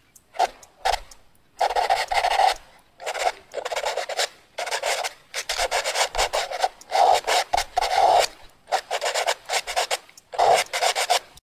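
Pen tracing a paper pattern laid over wood, scratching across the paper in quick strokes that come in bursts of about a second with short pauses between.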